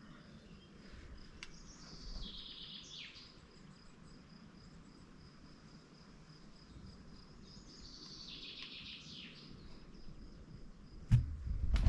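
A songbird sings two short, descending phrases several seconds apart, over a faint steady high-pitched tone like an insect. A sharp click comes near the end.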